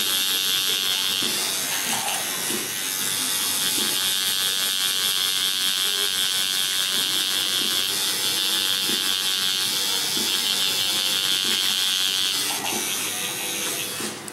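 Tattoo machine buzzing steadily as it works coloured ink into the skin of a forearm. The buzz dips briefly about two seconds in and stops near the end.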